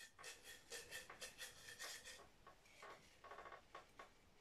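Faint rustle and rattle of paper slips being shaken inside a ceramic mug, in quick strokes. About two seconds in, this gives way to softer, scattered rustling as fingers rummage among the slips.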